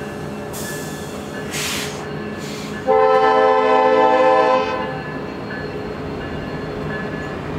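A train horn sounds one steady chord for just under two seconds, starting about three seconds in, over the continuous rumble of passenger cars rolling past.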